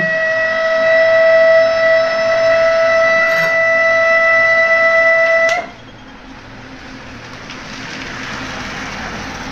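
Television audio fault: the set's speaker gives a steady whistling tone instead of clean sound, a noise caused by a cut PCB track or an open 220-ohm resistor. About five and a half seconds in the tone cuts off suddenly with a click, leaving a steady hiss.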